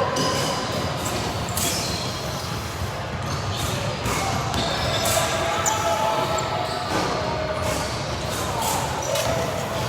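Basketball game in a gym: a basketball bouncing repeatedly on the court, with players and spectators calling out over a constant din.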